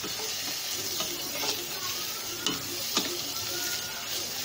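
Shredded boiled chicken sizzling in hot oil in a metal pan as a spatula stirs it. A steady frying hiss, broken by a few sharp clicks of the spatula against the pan.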